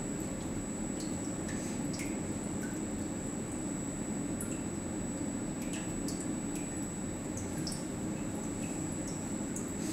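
Watson-Marlow peristaltic chlorine pump running steadily through a flow-calibration dose: a continuous low hum with a thin high whine over it, and scattered faint ticks.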